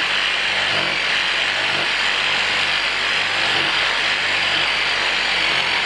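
Corded electric hand saw running steadily as its blade cuts into a tree branch: a continuous motor buzz with the rasp of the blade in the wood.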